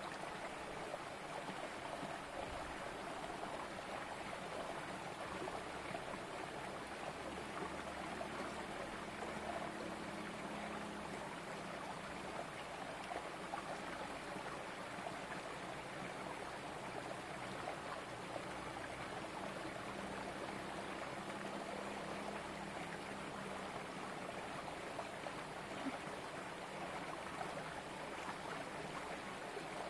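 Shallow rocky stream running steadily and trickling over stones.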